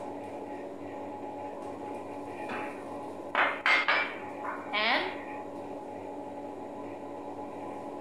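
Ceramic bowls knocking and clinking together a few times, sharp and close, about halfway through. A short scrape follows, over a steady low hum.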